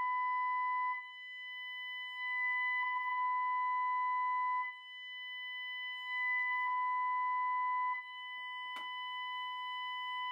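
Steady 1 kHz sine-wave tone from a small dome tweeter. It swells louder three times as the plastic horn is seated on the driver and drops back each time the horn is lifted off. A light knock near the end as the horn is set down.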